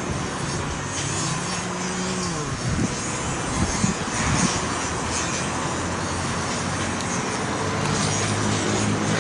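Road traffic heard from high above, a steady wash of engine noise, with wind on the microphone. One vehicle's engine hum drops in pitch about two seconds in.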